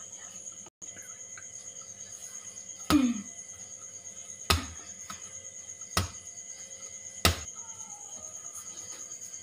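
Maida dough being kneaded by hand on a stone surface, with four thumps about a second and a half apart as it is pushed and pressed down. A steady high cricket chirping runs underneath.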